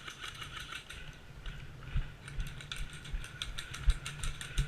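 Airsoft guns firing: a scatter of sharp mechanical clicks and snaps, with a few heavier thumps about two seconds in, near four seconds (the loudest) and just before the end.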